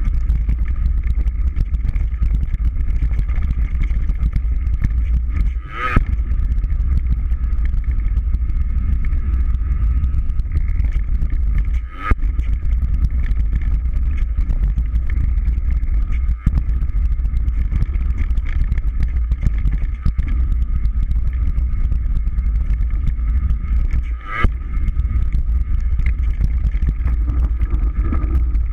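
Steady loud rumble of wind and trail noise on a camera riding a mountain bike fast down a rough dirt forest trail, with a faint steady high hum above it. The noise drops out briefly about 6, 12 and 24 seconds in.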